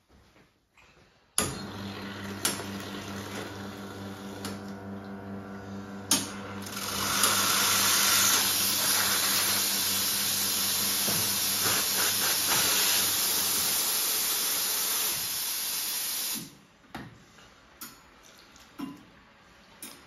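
Steam wand of an Expobar Carat espresso machine opened about a second and a half in, hissing over a steady low hum, then blowing a full, loud steam jet from about 7 s until it is shut off sharply near 16 s; a purge that clears condensed water from the wand.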